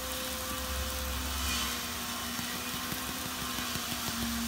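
Shredded vegetables sizzling quietly in a nonstick wok under a steady low hum, with light ticking in the second half.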